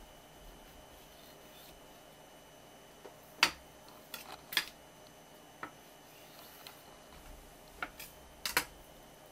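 A kitchen knife and a raw fish fillet handled on a wooden cutting board: about half a dozen sharp taps and knocks, scattered, the loudest about three and a half seconds in.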